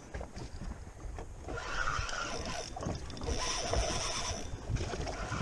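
Penn spinning reel being cranked against a hooked fish, with water noise around a small boat.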